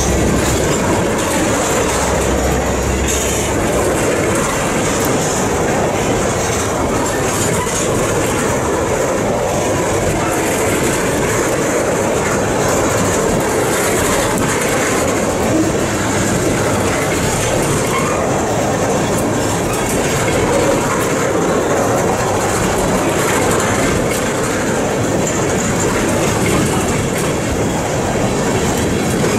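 Freight train tank cars rolling past close by: a steady, loud rumble and clatter of steel wheels on the rails.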